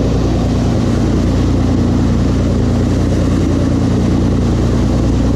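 Sportfishing boat's engine running at a steady pitch: an even low drone with a constant hiss over it.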